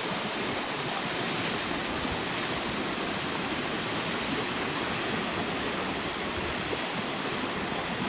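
Steady rush of water from a partly frozen waterfall and the open stream below it.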